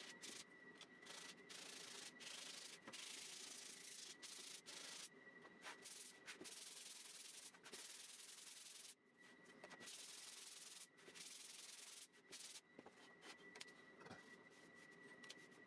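Faint sandpaper rubbing on thin MDF parts, in stretches of strokes broken by short pauses: scuffing the surfaces so the glue will bond better.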